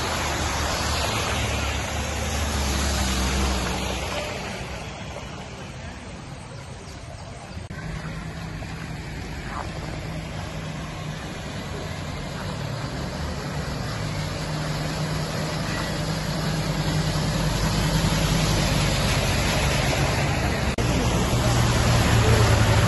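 Vehicles driving slowly through floodwater on a road: engine hum with the wash of tyres through water over a steady rushing noise. An SUV passes close in the first few seconds, and another engine grows louder near the end.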